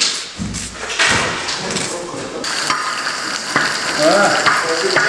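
Food frying in hot oil in a large pilaf cauldron (kazan) and being stirred: a steady sizzle that sets in about halfway through, after some irregular knocks.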